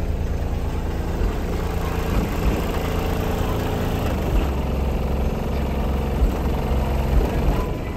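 Car audio subwoofers playing bass-heavy music very loud, a deep, steady, pulsing bass with notes shifting in pitch above it.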